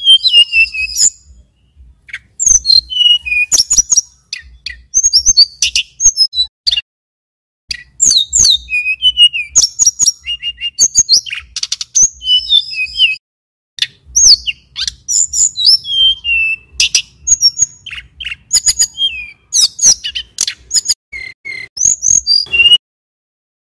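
Male tledekan gunung (sulingan gunung), an Indonesian flycatcher, singing long runs of quick, high whistled notes with many falling slurs. The runs come in several phrases with short pauses between them, and the song stops shortly before the end.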